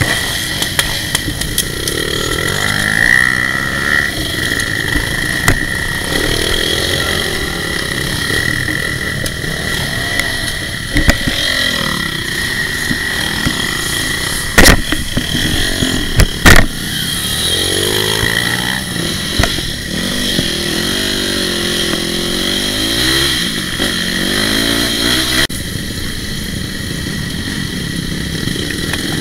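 Dirt bike engines running and revving up and down over and over, heard through a helmet-mounted camera, with two sharp loud knocks about halfway through.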